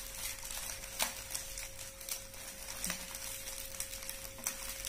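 Scissors snipping and plastic packaging crinkling as a toy set's clear plastic wrap is cut open, with three sharp clicks and a faint steady hum underneath.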